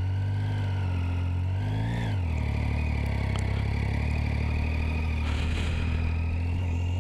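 Triumph Street Triple's 675 cc inline-three engine running under way. Its pitch rises about two seconds in, then falls back and holds a steady note.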